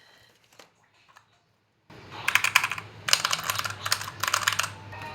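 Mechanical keyboard keys of an EVOFOX Katana S Mini being typed on fast, in three quick runs of key clicks starting about two seconds in.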